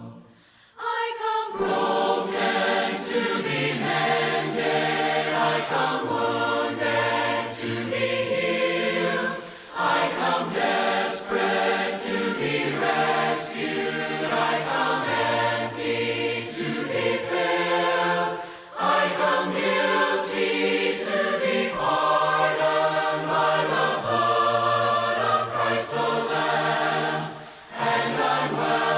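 Voices singing a hymn a cappella in harmony, in the unaccompanied congregational style of the Churches of Christ, starting about a second in, with brief breaks between phrases.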